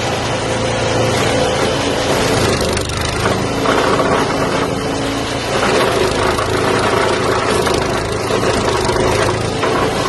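Wood chipper's 196 cc single-cylinder gasoline engine running steadily at speed.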